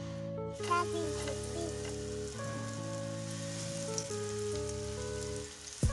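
Breaded sausage rolls deep-frying in a pan of hot oil: a steady sizzle that starts about half a second in.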